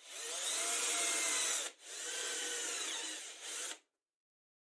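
Cordless drill boring holes in a wooden board: two runs of about two seconds each with a brief break between.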